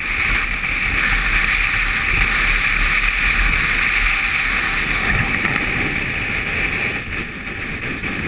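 Steady wind and riding noise on the camera microphone of a BMW GS motorcycle under way, with a rushing hiss over a low rumble that eases slightly near the end.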